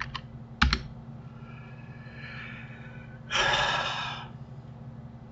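A man's loud sigh, a breath out about a second long after a fainter breath in, sighing in exasperation after a failed step. A single sharp click comes under a second before it.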